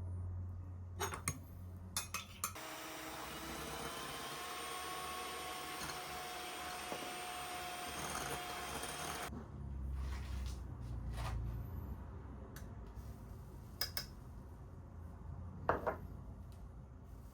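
Dishes and glassware being handled: a few sharp clinks, a steady hiss lasting about seven seconds that stops abruptly, then more scattered clinks and knocks.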